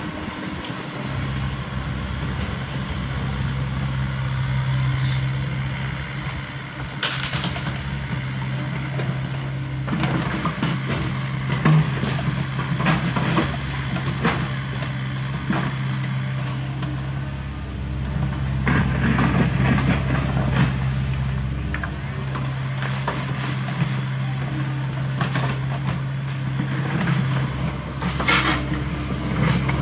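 CAT 307E mini excavator's diesel engine running steadily under digging load, with repeated crunches and clanks as its steel bucket scrapes into rocky soil, thickest from about ten seconds in.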